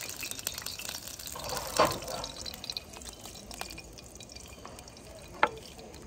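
Oil sizzling and popping in a frying pan of corn on a camp stove, with what the cook thinks is too much oil in it. The sizzle is busiest in the first couple of seconds and then dies down; a loud knock about two seconds in and a sharp click near the end.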